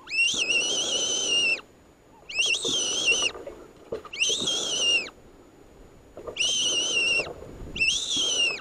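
Predator fox call squealing to draw in a fox: five long, high-pitched wavering squeals, each rising at the start and dropping at the end, with short pauses between them.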